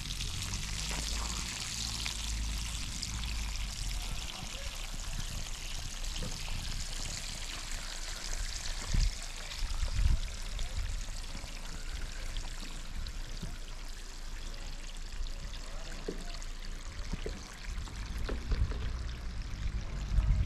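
Water pouring in a steady rushing stream, with a few knocks, the loudest about 9 and 10 seconds in.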